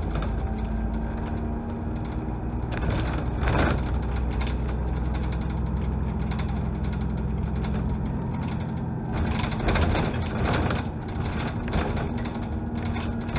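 Dennis Trident double-decker bus heard from the upper deck while driving: a steady engine drone that changes about eight seconds in, with body and window rattles that grow louder a few seconds in and again around ten seconds.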